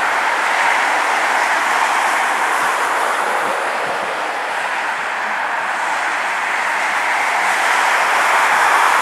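Airliner jet engines running at taxi power: a steady rushing noise that swells a little near the end.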